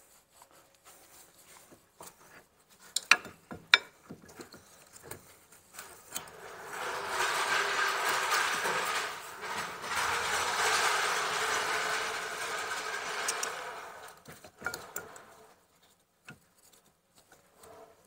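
Metal clicks and clinks as the brake caliper and its bolts are handled and offered up to the rear disc. Then a steady mechanical whirr runs for about seven seconds, with a short break partway through.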